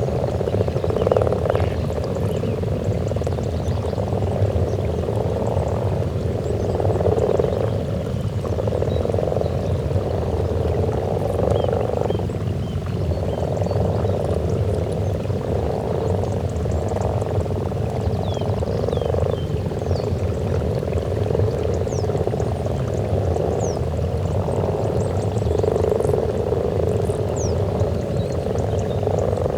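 A breeding chorus of many common frogs croaking together at their spawning pond: a dense, overlapping mass of low croaks that swells and eases every second or two without a break.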